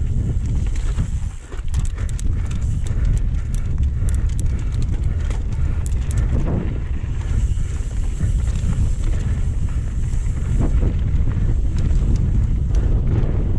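Mountain bike descending a dirt trail: wind rushing over the camera microphone under the rumble of tyres on dirt, with a quick run of rattling clicks and knocks from the bike over rough ground in the first half.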